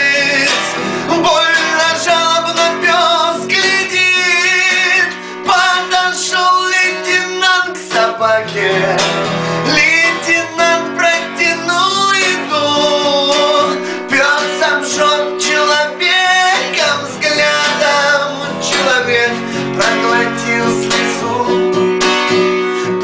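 A man singing a ballad to his own strummed acoustic guitar.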